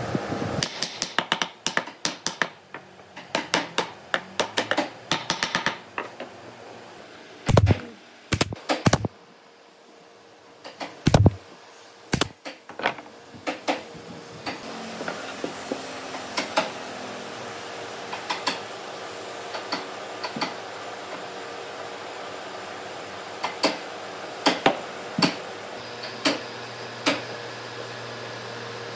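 Wooden boards knocking and tapping against one another and a wooden workbench as they are handled and fitted: a quick run of light taps at the start, a few heavier knocks partway through, then scattered taps.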